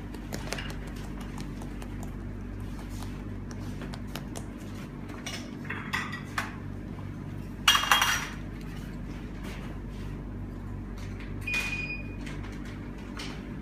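A few scattered clinks of utensils against dishes or metal bowls, the loudest about eight seconds in, over a steady low hum.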